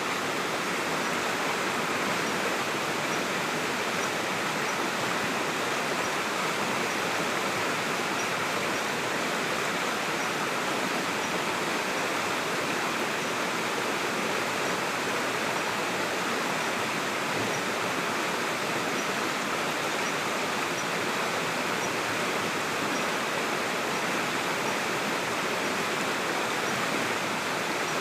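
Steady rush of water from a waterfall and its stream, an even hiss without breaks.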